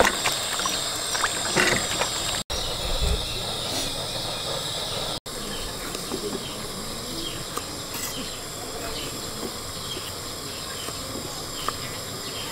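Water sloshing and splashing as hands wash fruit in a plastic basin, then a knife cutting a tomato on a wooden board with a few faint taps. A steady high insect hiss runs underneath throughout.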